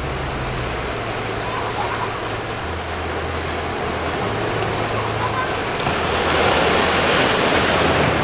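Small waves breaking and washing in over a shallow rocky reef shelf, the water hissing across the rocks, with a surge that swells louder about six seconds in. A low wind rumble sits on the microphone beneath it.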